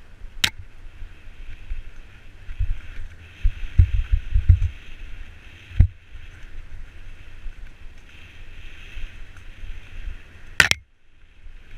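Mountain bike running fast down a dirt forest trail: steady rolling and wind noise with a low rumble, heavy thumps as the bike hits bumps around four seconds in, and a few single sharp knocks, the last one near the end.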